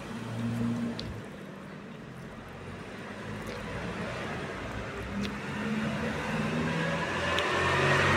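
Steady low background hum, with a rustling noise that builds and is loudest near the end.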